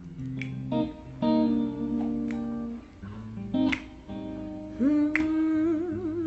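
Acoustic guitar strumming and sustaining chords, with a few sharp clicks on the beat. From about five seconds in, a voice sings one long held note with vibrato over it.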